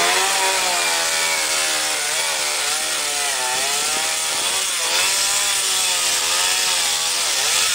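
Chainsaw cutting through the branches of a felled tree, the engine running without pause, its pitch rising and falling as the chain bites and frees.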